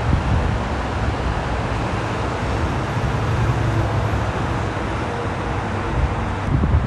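Steady freeway traffic noise from many cars and semi-trucks passing: tyre hiss and engine rumble, with a low engine drone through the middle.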